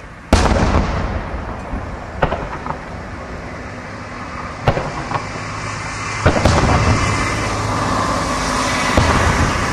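Aerial firework shells bursting: about five sharp bangs, roughly two seconds apart, the loudest one just after the start. Each bang is followed by a low rumbling echo.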